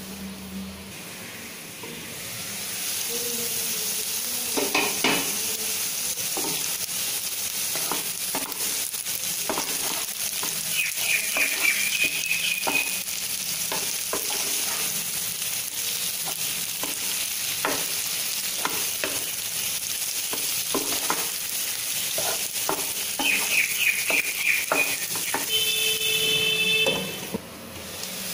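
Baby potatoes frying in oil in a nonstick pan: a steady sizzle that gets louder about two seconds in, while a spatula stirs them with frequent knocks and scrapes against the pan. Two brief runs of short squeaks come in, and a short steady tone sounds near the end.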